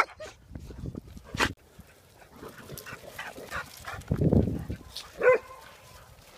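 Dogs giving scattered short barks and yips, with one short, sharp yelp near the end.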